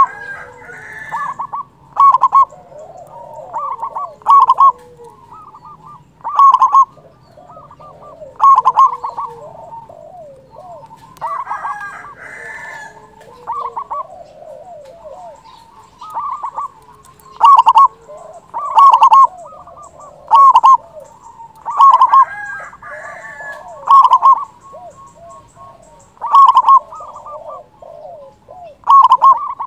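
Zebra dove (perkutut) singing its cooing song: a quick run of clipped notes ending in a louder coo, repeated about every two seconds, with a short pause about halfway through. Softer chirps of other birds fill the gaps between the calls.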